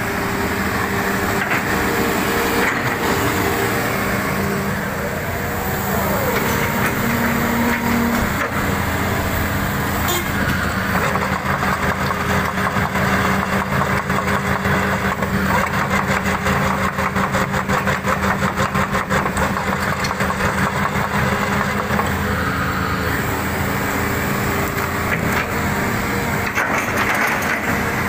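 Diesel engine of a crawler excavator running steadily. A fast rattling clatter joins in for several seconds around the middle.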